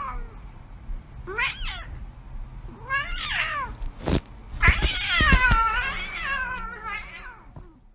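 A domestic cat meowing several times, each call bending up and down in pitch, with a longer drawn-out meow about five seconds in. A few knocks are heard around the middle.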